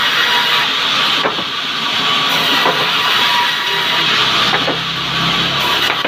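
Sawmill saw running and cutting lengthwise through a log as it is fed by hand: a steady, loud noise of blade in wood.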